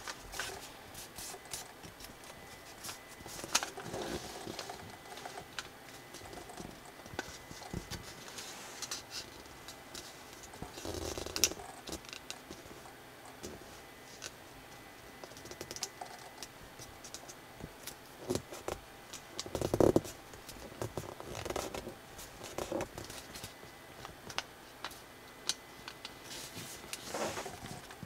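Square origami colour paper being folded and creased by hand, rustling and crackling with many small clicks. There are louder crinkling bursts a few times as the folds are pressed and flipped.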